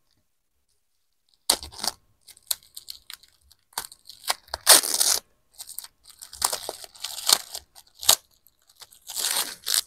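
Scissors cutting and tearing through the plastic tape and plastic wrapping of a parcel, with crinkling and rustling in irregular bursts. It starts about a second and a half in.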